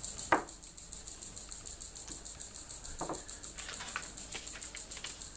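Light handling noises: a few short crinkles and soft knocks as a small plastic bag of kit parts and a paper instruction sheet are handled on a table, over a rapid, even, high-pitched ticking in the background.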